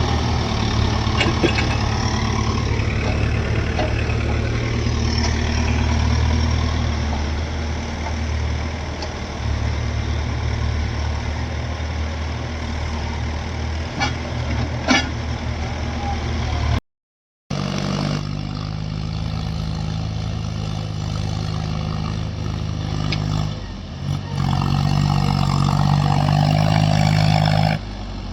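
Diesel engine of a JCB 3DX backhoe loader running steadily at working speed, with a few sharp metallic clanks about halfway through. It cuts out abruptly for about half a second about two-thirds of the way in, then the engine is heard again, running steadily at a different pitch.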